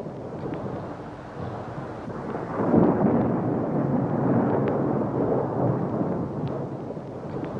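Thunder rumbling with rain, swelling loudest a little under three seconds in.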